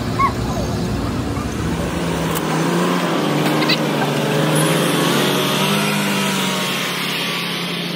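Heavy truck engine running under load as the low-bed trailer carrying an excavator moves off, its pitch wavering slightly, with brief voices at the very start.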